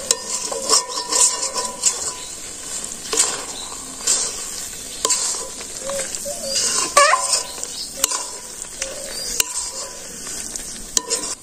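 Metal spatula scraping and knocking against a metal karahi as a thick vegetable mash is stirred. The pan rings briefly after the sharper knocks, over a low sizzle of the food cooking.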